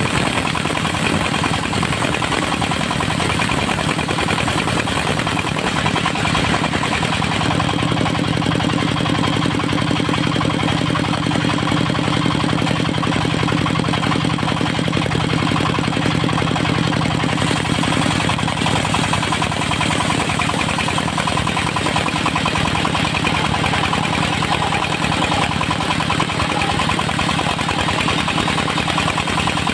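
Engine of a portable circular sawmill running steadily, with a slight change in its low tone about seven seconds in.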